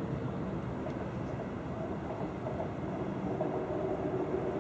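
Steady low rumble of background noise with faint wavering tones, and no bangs or bursts.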